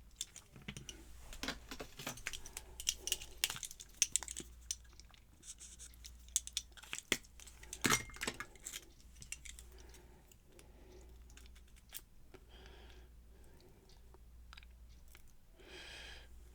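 Small metal lock parts clicking and tapping as a padlock is taken apart by hand, with driver pins and springs being worked out of the lock's bible. The clicks come thick and irregular for the first half, then give way to softer, sparser handling noise.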